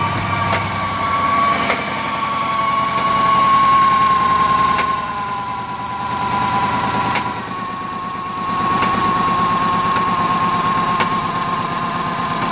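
2005 GMC Envoy 4.2 L inline-six idling roughly, with sharp pops coming through at irregular intervals over a steady high whine. The engine is throwing a P0017 crankshaft/camshaft position correlation code even after its VVT part was replaced.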